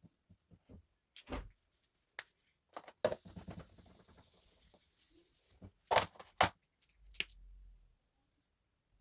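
Drawing by hand: pencil scratching on paper with scattered taps and knocks of the pencil and paper being handled, the loudest a pair of sharp knocks about six seconds in.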